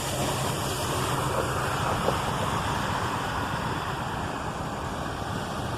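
Steady rushing of a rain-swollen creek, an even wash of water noise.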